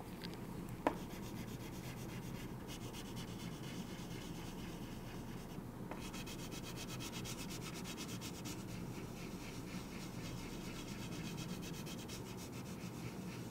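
Chalk rubbing and scratching on a chalkboard as a diagram is drawn and shaded in: a soft, steady scraping, with one short sharp sound about a second in.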